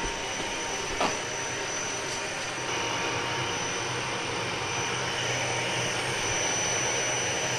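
CNC milling machine running: a steady mechanical hum and hiss with a faint high whine, with a short knock about a second in.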